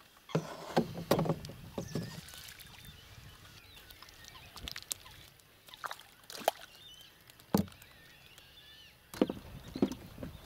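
Irregular knocks and bumps on a wooden boat's hull as things are moved about in it, a cluster of them at the start and then single knocks every second or two, with a little water sloshing against the boat.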